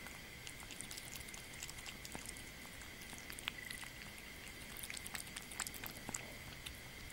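Kitten eating boiled meat and egg from a ceramic bowl: a steady run of small wet smacks and chewing clicks, some sharper ones past the middle.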